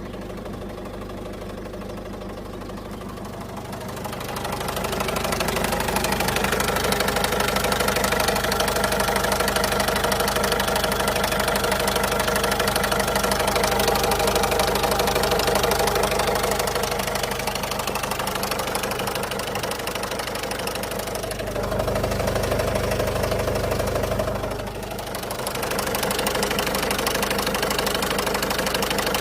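2008 Citroën Berlingo's 1.6 HDi four-cylinder diesel engine running and making the strange noise its owner cannot identify. The sound gets louder about four seconds in and changes in tone for a few seconds about two-thirds of the way through.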